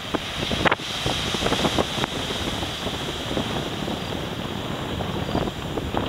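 Typhoon wind buffeting the microphone in irregular gusts over the steady rush of high storm surf breaking on the shore.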